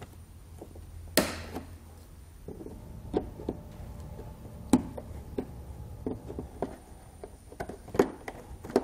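Aviation tin snips cutting thin plastic bumper fascia: a string of sharp snaps at irregular intervals, each one a bite of the blades through the plastic, the loudest about a second in, near five seconds and at eight seconds.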